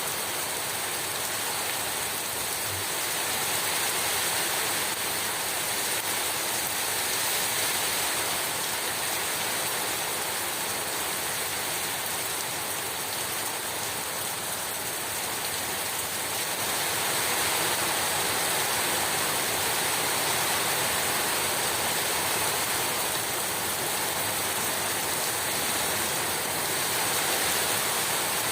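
Heavy rain pouring steadily: a dense, even hiss that swells gently in strength a few times.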